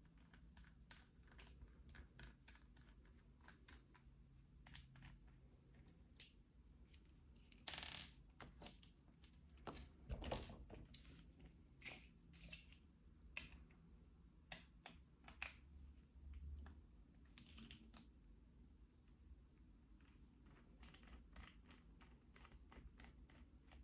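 Faint, scattered clicks and taps of a small screwdriver and tiny screws being worked out of a laptop hard drive's metal cover, with a few louder clicks about eight and ten seconds in.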